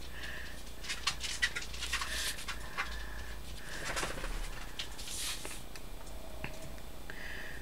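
A dog whining in short, high, steady-pitched notes that come again every second or so, over a low steady hum, with a few soft rustles and clicks of hands working on card.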